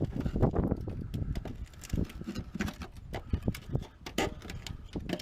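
Irregular clicks, taps and knocks of hands and tools working on the car's bodywork.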